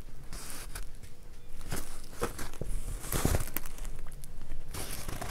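Rustling and crinkling of a diamond painting canvas and its plastic cover film as it is handled and flexed, with a few light clicks.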